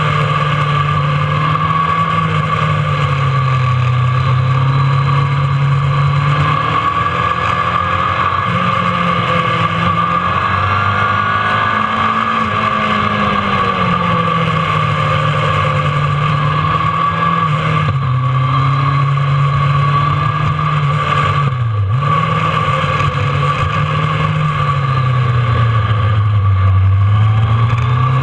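Kawasaki ZRX1200's inline-four engine under way, ridden on the open road. Its revs rise and fall through the bends, with a sharp brief dip about two-thirds of the way through.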